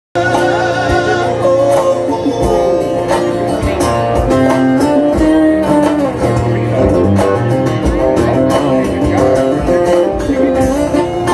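Solo acoustic guitar played live.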